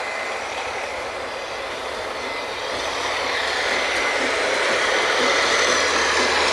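Steady, loud machinery noise of a working oil drilling rig, an even rushing drone that grows louder about three seconds in.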